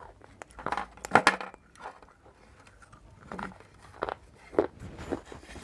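Dry clay and chalk pieces being bitten and crunched between the teeth, close to the microphone: irregular crisp crunches, the loudest about a second in.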